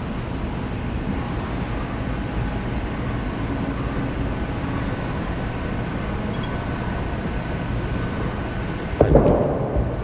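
Steady rumble of a busy bowling alley, balls rolling and pin machines running on other lanes. About nine seconds in, a sudden loud thud and rumble as the bowling ball is released onto the lane and starts rolling.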